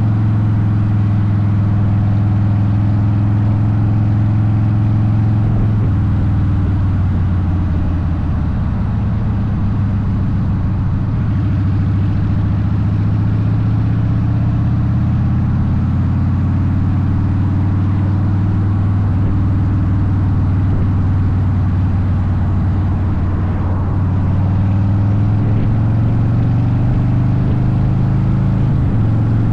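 Harley-Davidson Softail Deuce V-twin with Vance & Hines exhaust running on the road under way. Its deep note dips and climbs a few times.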